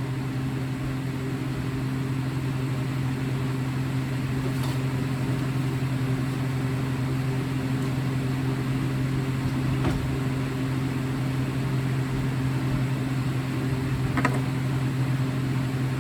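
Steady low machine hum, with a few faint clicks about five seconds apart.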